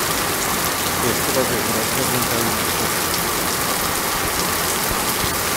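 Heavy rain pouring steadily onto a garden of trees and lawn, a loud, even hiss.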